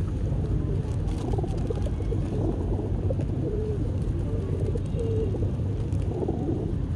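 Pigeons cooing: several low, curving calls repeating one after another over a steady low rumble.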